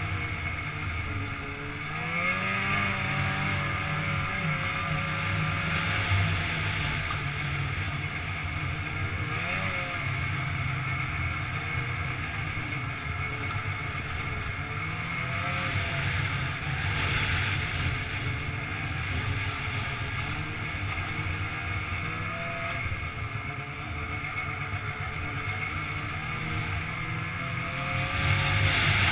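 Polaris snowmobile engine running under way on a snow trail, its pitch climbing several times as the throttle is opened and easing back between.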